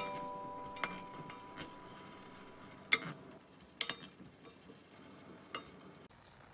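Two wooden spatulas knocking and scraping against a frying pan while tossing a stir-fry of vegetables, shrimp and tofu. There are several separate sharp knocks, the loudest about three seconds in.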